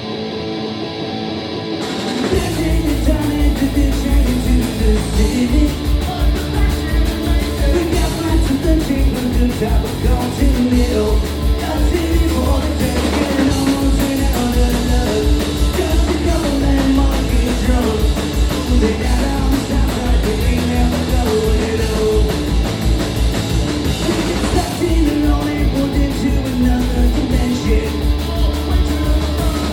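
Punk rock band playing live: an electric guitar alone at first, then drums and bass come in about two seconds in and the full band plays on loud.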